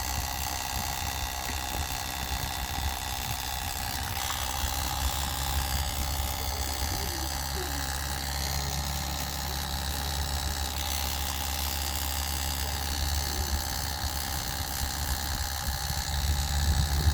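Small oil transfer pump running steadily as it pumps gear oil into a rear differential, giving a continuous mechanical hum. The hum gets a little louder near the end.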